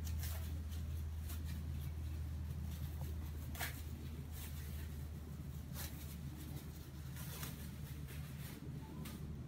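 A steady low hum, with a few faint scattered clicks and rustles over it; one is a little louder about three and a half seconds in.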